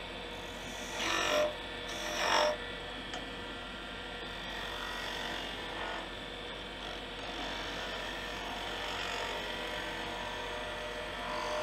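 Wood lathe running steadily while a hand-held turning tool cuts V grooves into a spinning wooden blank, a scraping, hissing cut. Two short, louder cuts come about one and two seconds in, followed by lighter, steadier cutting.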